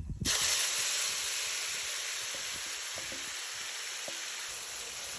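Thick, wet yogurt-and-green-herb marinade paste poured into hot oil in a cast-iron skillet, sizzling hard. The sizzle bursts in suddenly about a quarter second in, is loudest at first, then slowly eases as the oil cools under the paste.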